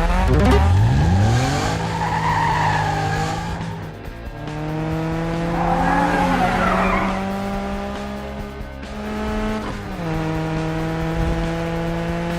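Cartoon vehicle engine sound effect: the engine revs up at the start, then runs at a steady pitch that drops and climbs again twice. Tyre squeals come in around two seconds and again around six seconds.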